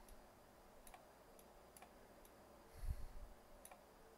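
Near silence with faint, scattered computer mouse clicks, about six over the few seconds, and a soft low thump about three seconds in.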